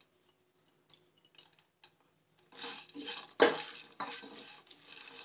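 A silicone spatula stirring fried peanuts, chana dal, chillies and curry leaves around a kadai in hot oil: a few faint clicks, then about halfway through a run of scraping and rattling, with one sharp knock of the spatula on the pan a little later.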